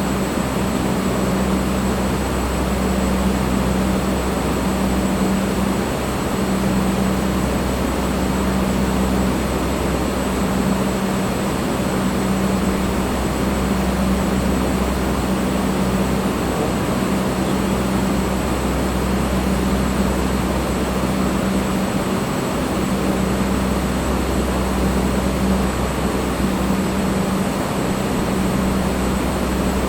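Electric fan running steadily: an even whoosh of moving air over a low motor hum.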